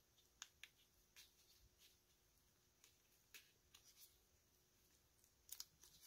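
Near silence with faint, scattered clicks and rustles from nitrile-gloved hands sliding heat-shrink tubing over battery wire leads, two slightly louder clicks near the end.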